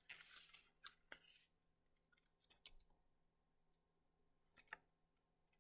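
Near silence with faint rustling and a few soft clicks as a paper picture book is turned and held open.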